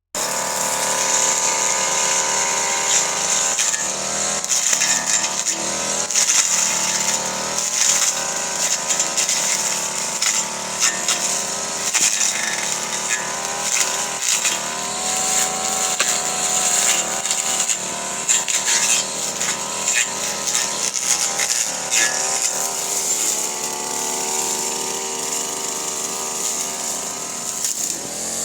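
Petrol brush cutter running and cutting napier grass close to the ground. The engine pitch rises and falls with the throttle, and short cracks from the blade striking the thick stalks run through it.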